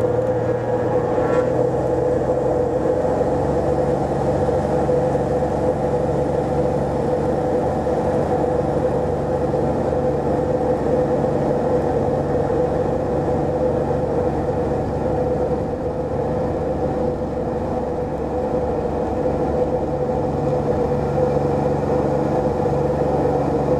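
Continental IO-360 six-cylinder aircraft engine and propeller running steadily while the plane taxis, the note rising slightly about three seconds in.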